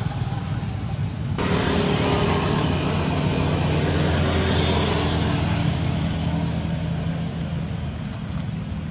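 A motor vehicle's engine running as it passes on the road: the hum comes in suddenly about a second and a half in, then slowly fades.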